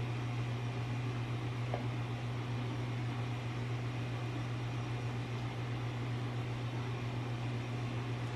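Steady low hum over an even hiss, like a fan or appliance running, with one faint soft click a little under two seconds in.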